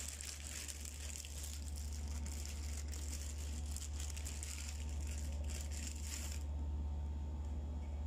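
Crinkling and crackling of takeout food packaging being handled, stopping about six seconds in, over a steady low hum.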